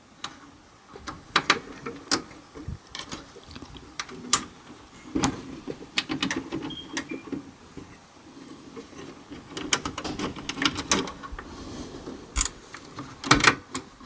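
Irregular metallic clicks and taps of a small Allen key working at the screws inside an HP ProLiant MicroServer's metal case, with a louder clatter near the end.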